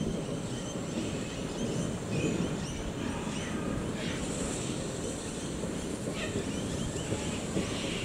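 SAR 620 class steam locomotive 621 moving slowly with its carriages, a low rumble under wind buffeting the microphone, with birds chirping throughout.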